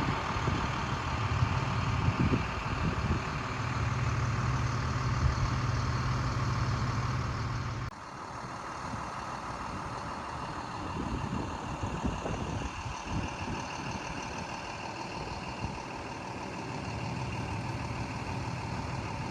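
Motor vehicle running, with a steady low engine hum and road noise. It cuts off abruptly about eight seconds in, giving way to a quieter stretch of similar vehicle noise.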